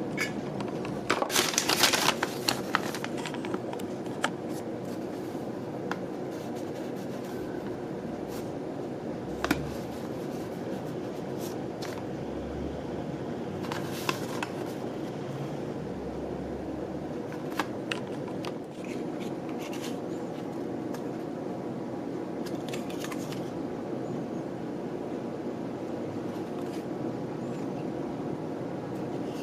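Scattered rustles and light clicks of paper and cardboard being handled (the kit box, the instruction sheet and a card of metal wheels), over a steady background hum.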